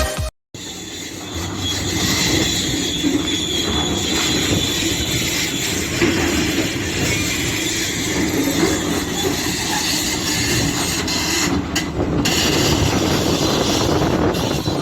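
Heavy earthmoving machinery at work: a diesel engine running steadily under load, with a high steady whine over it.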